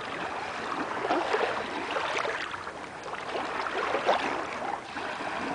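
Small waves of lake water lapping and splashing irregularly against the shoreline rocks.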